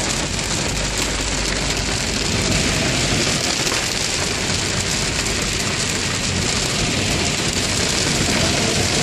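Steady hiss of rain on a moving car and its tyres running through standing floodwater on the road, heard from inside the car's cabin.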